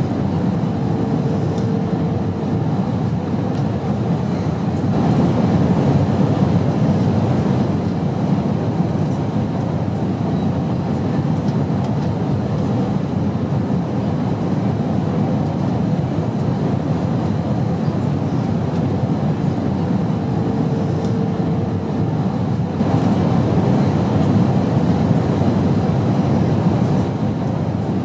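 Steady airplane cabin noise: a low, even rumble of engines and rushing air, swelling slightly twice, with a faint brief hum heard twice.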